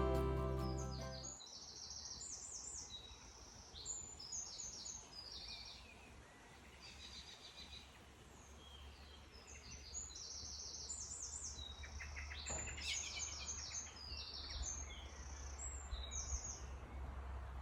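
Garden birds singing: repeated high chirps and short trills, often several birds at once, over a low steady rumble.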